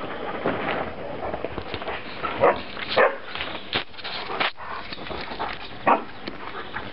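Three-week-old puppies squeaking and whimpering while they nurse, a handful of short high squeaks over a steady rustle.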